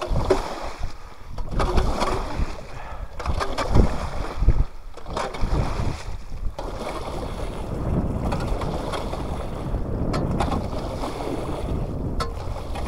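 Water sloshing and splashing in a long slot cut through lake ice, pushed back and forth by a pole with a paddle on its end to draw fish along, with a landing net dipping in. It comes in irregular surges, the loudest in the first few seconds, then settles into a steadier slosh.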